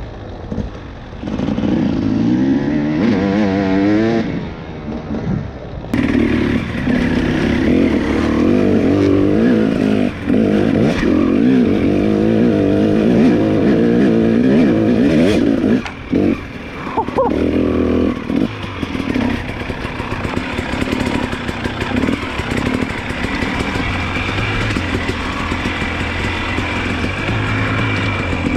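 Enduro dirt bike engines revving up and down under off-road riding, their pitch rising and falling again and again. The sound changes abruptly about six seconds in and dips briefly twice more.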